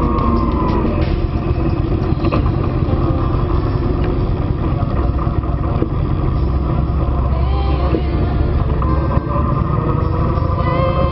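Motorcycle engine running as it rides along in traffic, under a loud, steady low rumble, its pitch wavering slightly as the speed changes.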